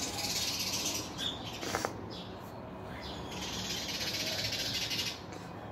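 Birds chirping against a high hiss that swells twice, with a brief click about two seconds in.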